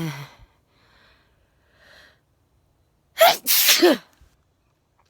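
A woman sneezes loudly once about three seconds in, the sneeze ending in a voiced cry that falls in pitch. Two faint breaths come before it.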